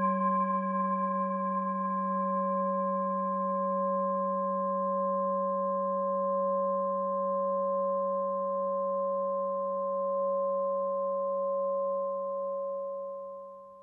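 A long sustained ringing tone with several overtones above a low fundamental. The highest overtones die away first, and the whole tone holds steady before fading out near the end.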